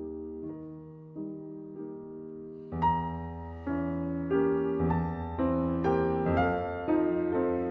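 Background piano music: slow single notes and chords, growing louder and fuller about three seconds in.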